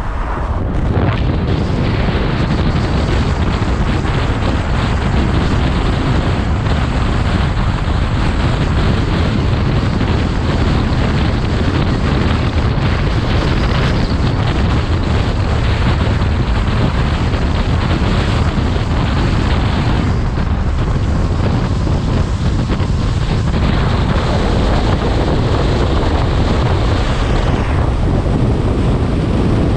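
Steady, loud wind buffeting the microphone of a camera held up through a moving car's open sunroof.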